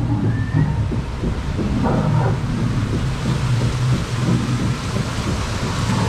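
Rushing, splashing water of a river-rapids raft ride, a steady noise with a heavy low rumble underneath.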